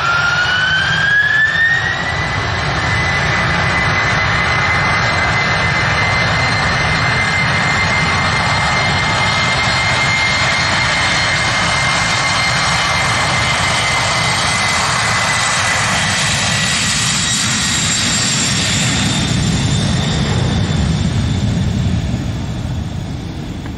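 A Lockheed C-5 Galaxy's four GE TF39 turbofan engines spooling up for the takeoff roll. A high whine rises over the first two seconds, then holds steady over a low rumble. Near the end the rumble swells and then fades.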